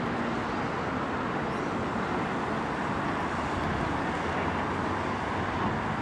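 Distant city road traffic: a steady, even noise from many cars on the streets far below.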